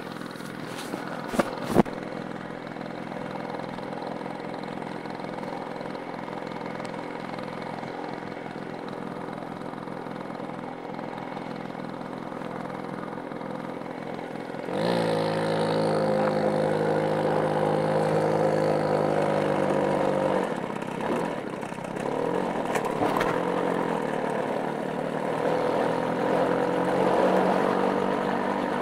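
Small motorcycle engine running steadily at low revs, with two sharp clicks near the start. About halfway through it is throttled up, the pitch rising and holding as it rides. It eases off briefly, then picks up again.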